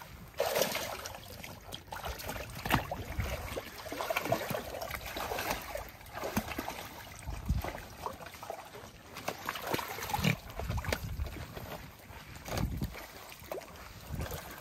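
Water splashing and sloshing in uneven bursts as otters move about in it.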